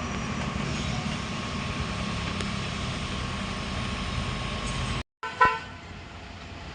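Heavy machinery diesel engine running steadily, with a steady high tone over it. Just after five seconds the sound cuts out briefly, then a short, loud pitched blip and a quieter engine drone follow.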